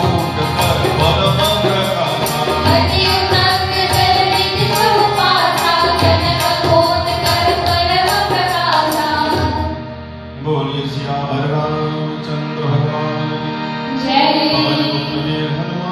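Devotional chaupai sung by a male voice to harmonium accompaniment, with a steady percussion beat that stops about ten seconds in before the singing picks up again.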